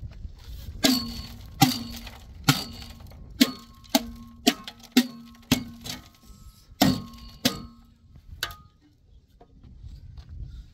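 A steel shovel blade repeatedly strikes a metal wheelbarrow, making about ten sharp metallic clanks. Each clank rings briefly at the same pitch. They come at uneven intervals under a second apart and stop about eight seconds in.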